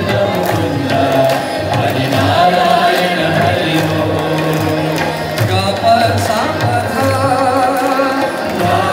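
Hindu devotional bhajan for the evening aarati: voices singing a melody with percussion accompaniment.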